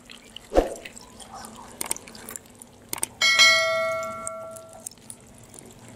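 A bright bell-like ding sound effect from a subscribe-button animation about three seconds in. It rings on for about a second and a half while fading, after a short click, with a few faint clicks and a thump earlier.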